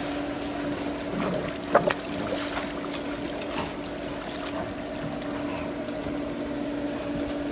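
Dogs swimming and paddling in a pool, the water splashing and lapping, over a steady low hum. A brief sharp sound stands out a little under two seconds in.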